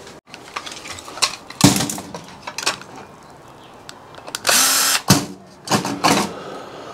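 Sharp clicks and knocks of small metal parts being handled, with one short burst of a small power tool's motor a little past halfway.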